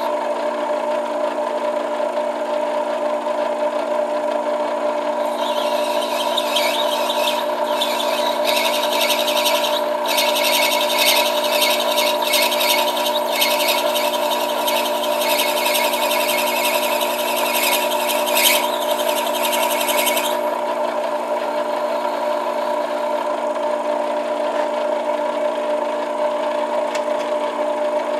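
Metal lathe running steadily with a hum of several fixed tones. From about five seconds in to about twenty seconds, a hissing, scraping cut is added as the tool takes light passes on the acrylic pipe stem, turning it down. The lathe then runs on alone.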